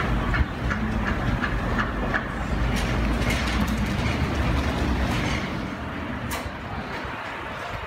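Low, fluctuating rumble of city street noise with a few faint clicks, easing off after about five seconds.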